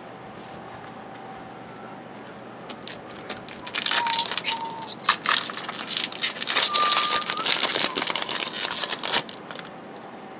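Trading-card pack wrapper being torn open and crinkled, a loud crackly rustling with many sharp crackles that starts about four seconds in and lasts about five seconds.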